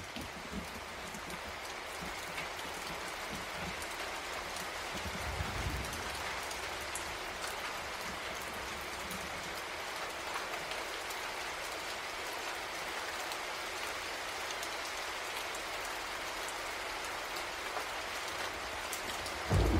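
Steady rain falling: an even hiss with no pauses, and a brief louder low knock right at the end.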